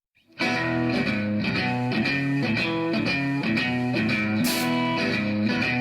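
Intro music: a rock track led by guitar, starting about half a second in and going on at a steady rhythm.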